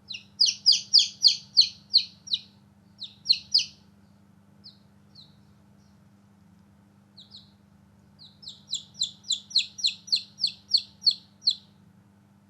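Baby chicks peeping: a quick run of short, high chirps at about four a second, a few scattered chirps, then a second quick run near the end.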